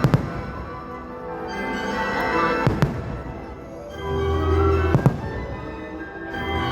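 Fireworks bursting over a music soundtrack: three sharp bangs about two seconds apart, one right at the start, one near the middle and one about five seconds in, with a deep rumble just before the last.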